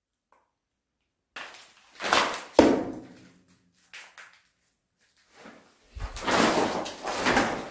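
A few knocks and thuds of someone moving on concrete stairs, with one sharp knock about two and a half seconds in, then a longer burst of scuffing and rubbing near the end as the camera is jostled.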